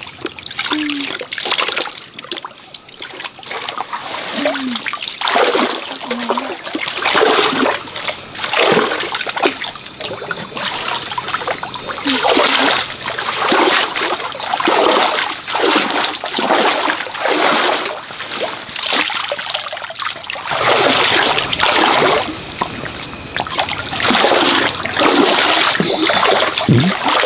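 Stream water splashing and sloshing repeatedly, in irregular bursts that come about once a second through much of the second half.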